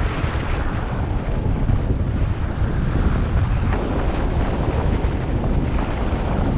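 Wind rushing over the camera's microphone on a hang glider in soaring flight: a steady, low buffeting rumble of airflow.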